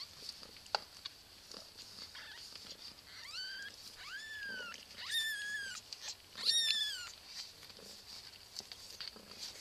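Cat mewing four times in quick succession, high-pitched calls that rise and fall, the last one the loudest.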